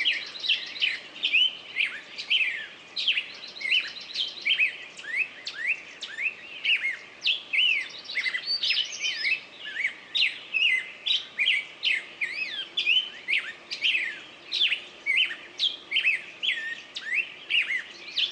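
Small songbirds singing: a dense, continuous run of quick chirps and short trills, several notes a second, overlapping as from more than one bird.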